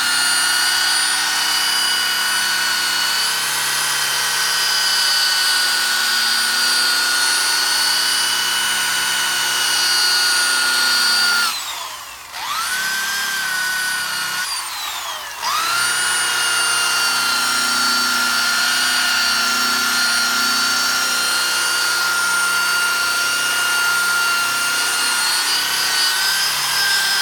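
Electric buffing wheel's motor whining steadily as it polishes a plastic headlight lens with finishing compound. About halfway through it is let off twice, briefly winding down and spinning back up. It winds down again at the end.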